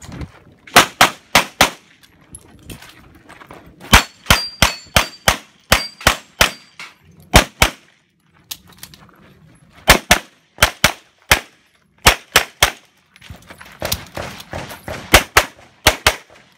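Rapid handgun fire: several strings of sharp shots, mostly in quick pairs, with pauses of a second or two between strings.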